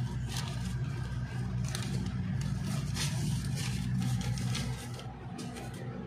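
A steady low hum, with a series of short rustles and clicks from the handling of a paper wiring diagram and orange flexible electrical conduit.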